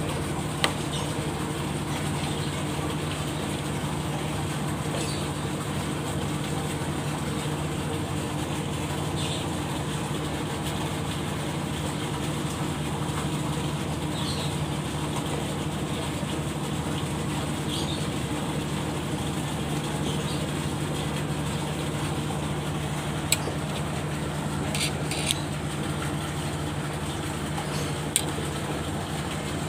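Steady low engine hum that keeps an even pitch and level throughout, with a few small sharp clicks in the last third.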